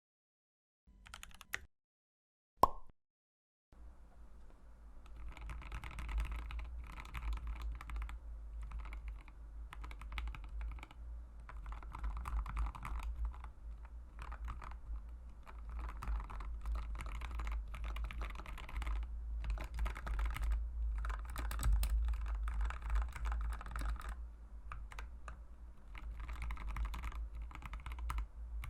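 Two short sounds in the first three seconds, the second a sharp click with a brief ringing tone; then, from about four seconds in, fast continuous typing on a mechanical keyboard with Mauve linear switches.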